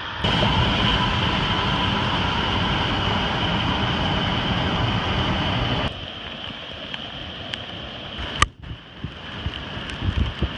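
Steady rushing of water and wind around a moving chase vehicle in a flash-flood storm. It drops off abruptly about six seconds in to a quieter rush, with a sharp click a little after eight seconds and a few knocks near the end.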